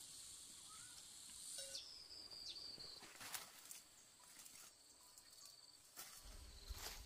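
Near silence with faint rural outdoor ambience: a steady high insect drone, with a few short chirps and faint ticks.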